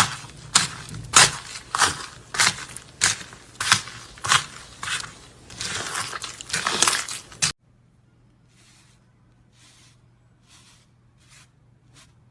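Slime being pressed and squeezed by hand, making a crunchy crackle in strokes a little over one a second, then a denser stretch of crunching. About seven and a half seconds in it cuts off abruptly, and fainter, softer crackling presses follow.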